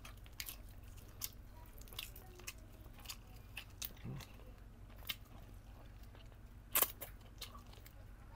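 Close-miked eating sounds of a person chewing and tearing boiled chicken from a tinola with bare hands: scattered wet smacks and small clicks from mouth and fingers, with a louder pair about seven seconds in.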